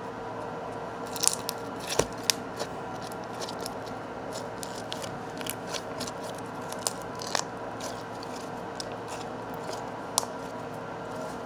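Wet pink slime being stretched and squished by hand, giving scattered sticky clicks and crackles, thickest in the first half.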